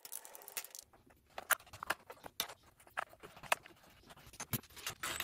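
Irregular small clicks and taps of bolts being hand-threaded into the red plastic housing of a Homelite XL chainsaw as the housing is handled and turned.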